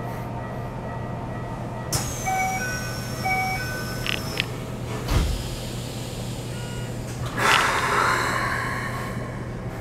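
Train passenger doors closing: two short electronic chime tones, the doors sliding shut with a thud about five seconds in, then a loud hiss about seven and a half seconds in. A steady low hum from the stopped electric train runs underneath.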